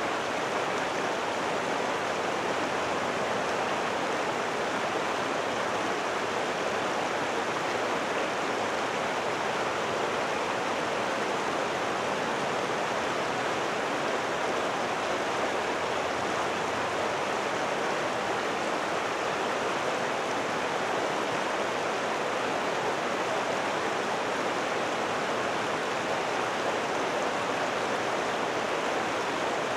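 Steady, even rushing noise with no rhythm, strokes or tones.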